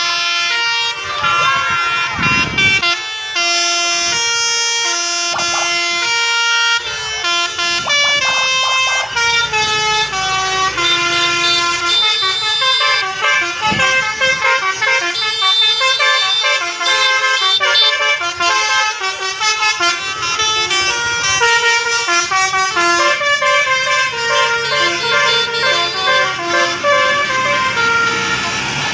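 Bus telolet horns, the multi-tone musical air horns fitted to buses, playing stepped melodies of held notes. Several horns sound over one another, more densely in the second half.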